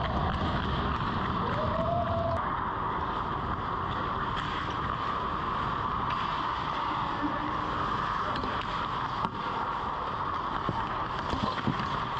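Ice hockey play heard from inside the goal: steady rink noise with skates scraping on the ice. A few sharp knocks come near the end.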